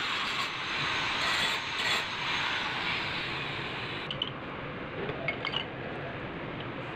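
Metal parts of a disassembled A/C compressor being scrubbed and swished in a basin of cleaning liquid, with splashing and a few light metallic clinks in the second half.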